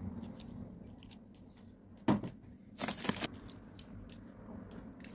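Small handling sounds over a baking tray lined with baking paper: a dull knock about two seconds in, a short crinkling rustle a second later, and light scattered ticks as sesame seeds are sprinkled over the pastries.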